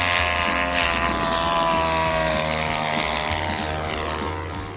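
Model airplane engine and propeller passing by in a low fly-by. Its steady buzzing drone slides gradually down in pitch as the plane goes past, then fades slightly near the end.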